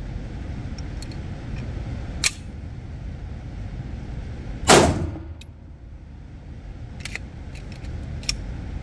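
A single 9mm pistol shot from a Polymer80 Glock-pattern pistol about four and a half seconds in, with a short echo off the indoor range. Around it are sharp clicks of the pistol being handled, one about two seconds in and a few small ones near the end.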